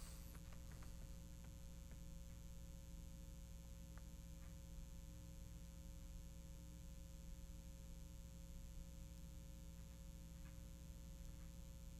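Near silence: a steady low hum with a few faint scattered clicks.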